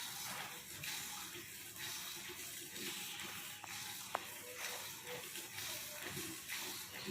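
Murrah buffalo being milked, milk squirting into a bucket in repeated hissing streams, a little under two a second. A single sharp click about four seconds in.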